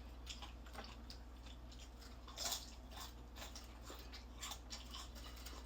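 Close-up chewing and biting of crispy fried chicken: scattered small crunches and wet mouth clicks, with one louder crunch about two and a half seconds in. A steady low hum runs underneath.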